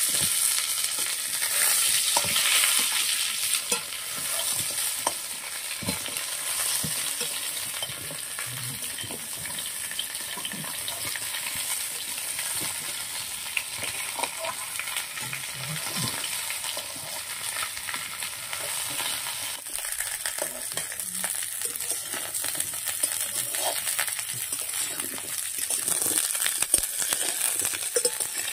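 Spiny gourd pieces frying in an iron wok, sizzling steadily, with frequent sharp clicks and scrapes of a metal spatula stirring them.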